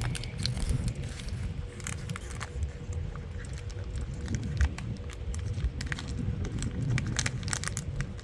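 Dogs chewing sock toys, giving irregular crackling, crinkling clicks over a low rumble.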